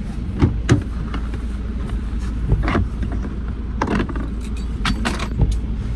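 Work truck's engine running with a steady low drone, with a scatter of sharp metallic clinks and knocks over it.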